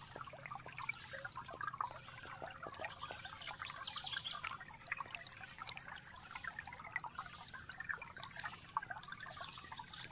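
Faint trickling water with birds singing: a quick descending trill repeated every couple of seconds, and short high chirps between the trills.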